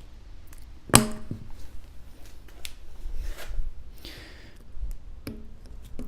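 Metal hand tool working at a screw lodged in a car tire's tread. A sharp metallic clink with a short ring comes about a second in, another clink near the end, and brief scraping in between.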